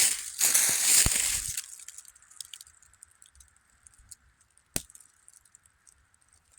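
Crunching of frozen leaf litter and ground underfoot for about a second and a half, then near quiet with a few faint ticks and one sharp click about five seconds in.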